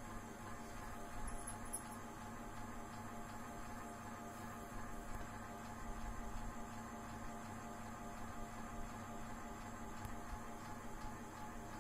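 A steady hum with a faint hiss, unchanging throughout.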